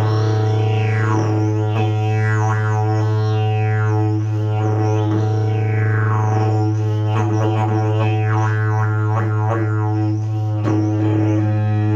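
Slide didgeridoo made of prickly pear fibre and fiberglass, played as a continuous low drone held at one steady pitch. The player's mouth shaping sweeps the overtones up and down again and again, giving a rhythmic, vowel-like wah over the drone.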